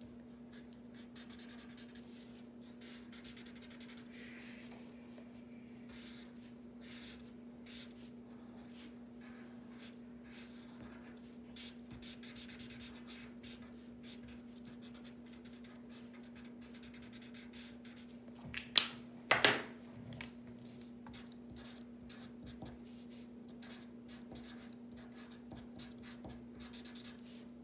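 Felt-tip markers scratching faintly on paper as a drawing is coloured in and then lettered, over a steady low hum. Two sharp clicks come about two-thirds of the way through.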